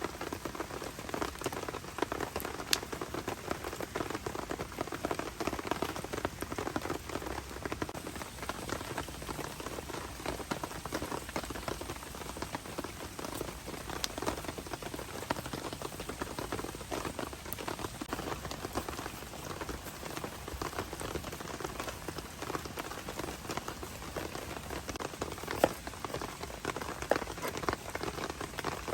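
Heavy rain falling steadily on a tent shelter, a dense spatter of drops with a few single louder drips now and then.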